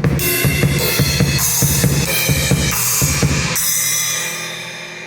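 Drum kit played with cymbal hits, on a kit fitted with a 6-inch Wuhan splash. About three and a half seconds in, the playing stops on a cymbal crash that rings out and slowly fades.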